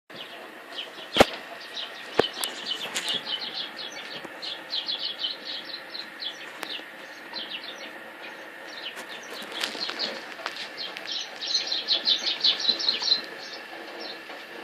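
Birds chirping in quick twittering runs throughout, with two sharp knocks about one and two seconds in.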